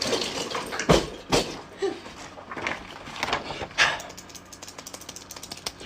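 Scuffling and handling noise with two sharp thumps about a second in, then a fast run of small clicks near the end.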